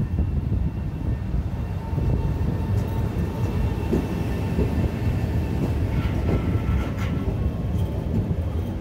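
Newag Impuls electric multiple unit rolling slowly past along the platform: a steady rumble of wheels on rail with a thin steady whine, and a few sharp clicks of the wheels over rail joints about six to seven seconds in.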